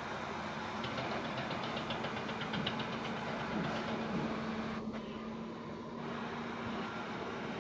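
Caterpillar 320 hydraulic excavator's diesel engine running while it digs with its bucket, a steady hum with a quick run of faint ticks over the first couple of seconds.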